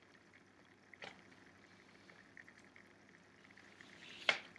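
Faint rustling of a paper inner sleeve being slid into a cardboard LP jacket, with a soft tap about a second in and a brief louder scuff near the end.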